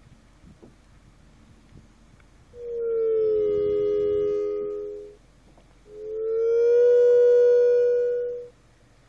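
Two synthesized electronic tones from the sonic kayak's Raspberry Pi sonification system, each held for about two and a half seconds with a short gap between. The first glides slightly down in pitch and the second slightly up, the pitch change signalling a decrease and then an increase in a sensor reading of the water temperature.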